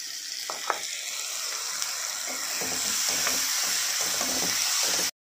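Chopped onions sizzling in melted butter in a metal kadhai, with a spatula stirring and scraping against the pan. The sizzle cuts off suddenly near the end.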